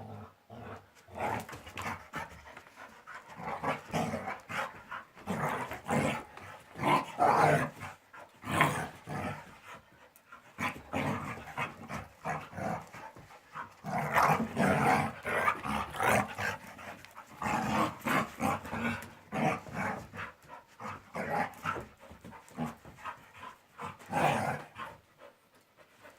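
Two dogs, a shar-pei and a white laika-type dog, play-fighting: panting and growling in irregular bursts.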